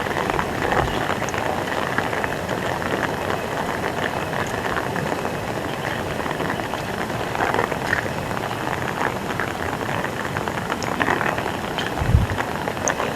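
Heavy rain pouring steadily, a dense even hiss with scattered sharper drips and splashes. A brief low thump comes near the end.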